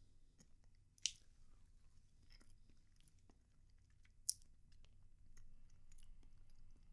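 Near silence with faint chewing and a few small sharp clicks; the two plainest clicks come about one second and about four seconds in.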